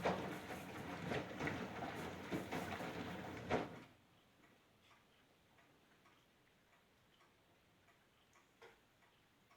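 Samsung WW65K52E69SDLP washing machine running with a dense rattling of rapid clicks. It stops abruptly about four seconds in, leaving only faint occasional ticks.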